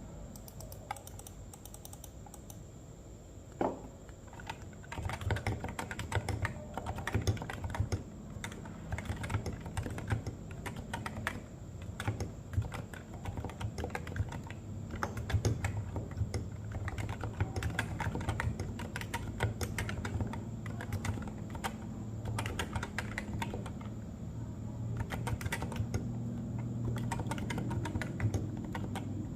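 Keys clacking on a Realforce R2 RGB keyboard, whose switches are Topre electrostatic capacitive, fitted with thick PBT Cherry-profile keycaps. A single knock comes about four seconds in, then rapid, irregular key presses continue.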